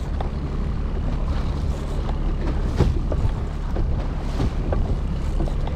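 A small boat under way: its motor running steadily under the sound of water splashing against the hull, with wind buffeting the microphone.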